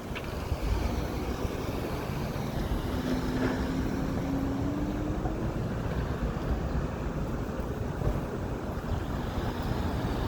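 City street traffic: a steady rumble of passing vehicles, with wind buffeting the microphone. A low hum rises slightly in pitch for a few seconds near the middle.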